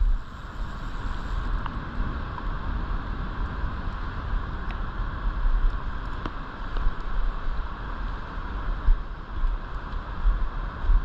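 Wind buffeting the microphone, a gusty low rumble over a steady rushing noise.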